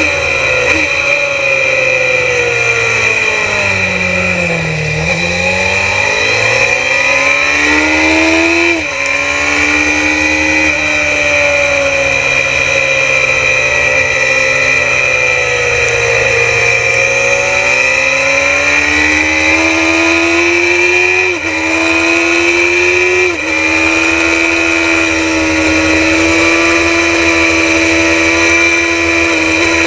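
Suzuki GSX-R750 racing motorcycle's inline-four engine at racing speed, heard from onboard the bike. Its pitch falls over the first few seconds as it slows, then climbs under acceleration, with sudden steps in pitch at gear changes about nine seconds in and twice more after about twenty-one seconds.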